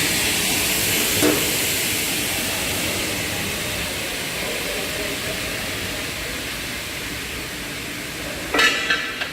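Double-head aluminium cutting saw with its 3 kW blade motors running, a steady whirring hiss that slowly fades. A small click about a second in and a couple of sharp clacks near the end.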